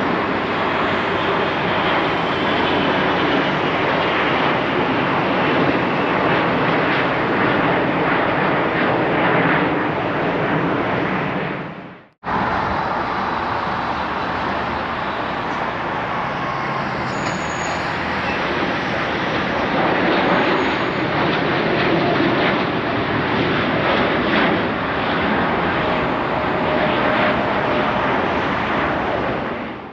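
Steady noise of jet airliner engines. It dips to silence for an instant about twelve seconds in, where the recording cuts, then carries on.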